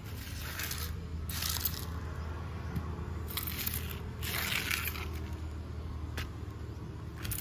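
Rustling and scraping handling noises in about six short bursts, the longest about four and a half seconds in, over a low steady hum.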